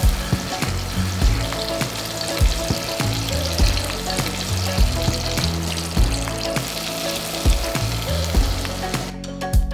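Mackerel fillet sizzling in hot oil in a frying pan as it is turned with spatulas. The sizzle cuts off about nine seconds in.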